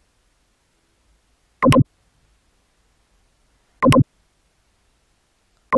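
Three short, loud blips of sound about two seconds apart, each cut off abruptly: brief fragments of a pump demonstration video's soundtrack heard as its playback is skipped forward.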